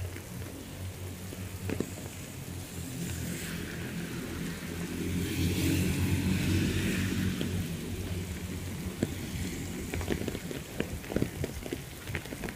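Steady heavy rain falling on foliage and wet ground, with scattered drips. About halfway through, a pickup truck passes on the wet road, its tyre hiss swelling and then fading under the rain.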